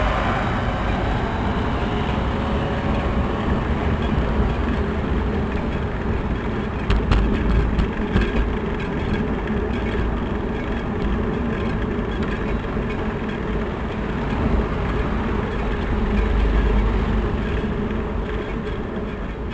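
Wind rumble and road noise on a bicycle-mounted action camera while riding, loud and steady. A short cluster of rattling clicks comes about seven seconds in.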